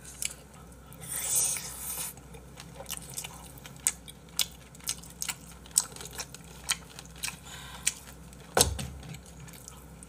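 Close-miked chewing and eating of braised monkfish with bean sprouts (agujjim): a run of short, sharp mouth clicks and smacks. A brief hiss comes about a second in, and a dull thump near the end.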